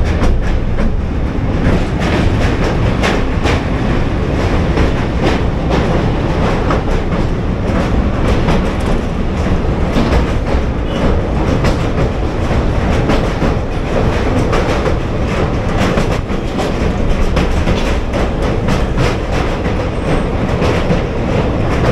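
Passenger train running at speed: a steady, loud rumble with dense, rapid clattering of wheels over the rails.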